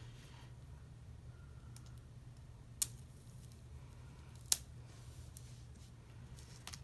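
Two sharp clicks about a second and a half apart, with a fainter one near the end, over a steady low hum.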